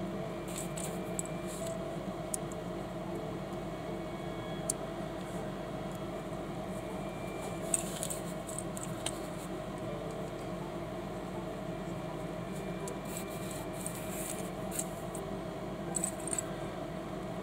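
Small plastic building bricks clicking and rubbing as they are handled and pressed together: scattered light clicks over a steady low hum.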